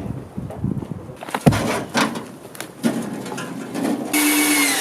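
A few knocks and clatters, the sharpest about a second and a half in, then a loud scraping screech lasting about a second near the end, with a steady squeal through it: a metal cage-trap door being shut on a dog.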